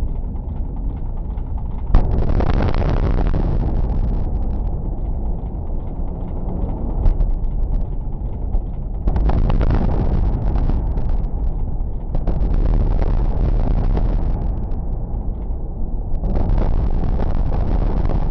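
Demolition implosion of a large concrete office block: a continuous deep rumble of the collapse. It jumps sharply about two seconds in and surges three more times as further sections come down.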